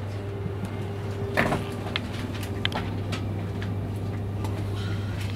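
Steady low hum inside a Renfe AVE high-speed train carriage, with scattered clicks and knocks and one louder rattling clatter about a second and a half in.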